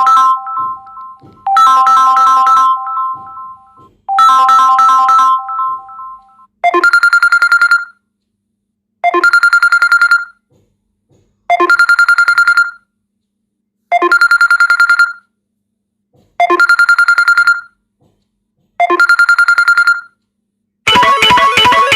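Samsung Galaxy M21 ringtones played one after another. First a multi-note electronic melody repeats three times. Then a different ringtone, a short ring of rapid pulses over one high tone, sounds six times about every two and a half seconds, and near the end a third ringtone starts with a plucked-string melody.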